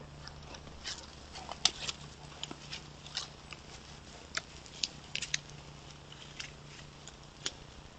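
A black bear messing with a trail camera at close range: irregular sharp clicks, taps and scrapes on the camera housing, over a steady low hum.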